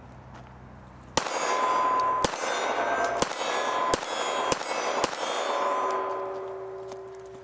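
Six shots from a Kahr P380 .380 pocket pistol, spaced under a second apart. Each is answered by steel targets clanging and ringing, and one plate keeps ringing for a couple of seconds after the last shot.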